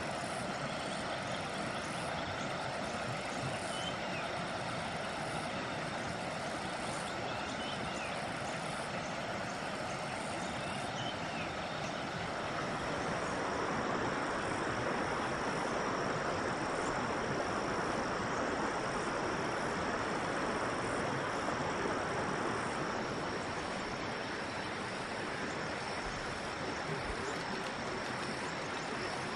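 Steady rushing of a rainforest river, with a constant high insect drone over it. A few short, faint chirps come through in the first half.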